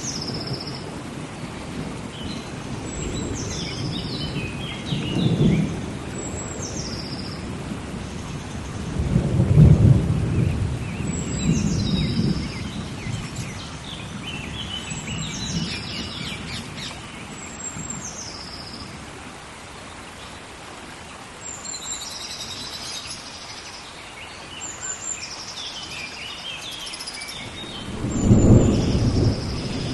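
Rainforest rainstorm: steady heavy rain with thunder rumbling several times, loudest about ten seconds in and again near the end. Over it a bird repeats a high call that steps down in pitch every two to four seconds.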